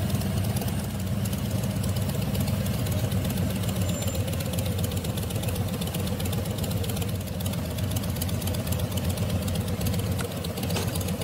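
Cruiser motorcycle engine running steadily at low revs while the bike creeps along in slow traffic.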